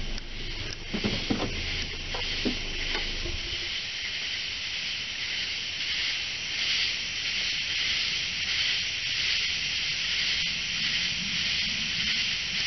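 A car engine idling, with a few knocks, then shut off about three and a half seconds in. A steady night insect chorus then carries on as a high, hiss-like buzz.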